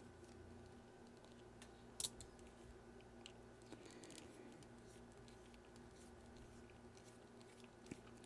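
Near silence: room tone with a faint steady hum and a few faint clicks, the sharpest about two seconds in.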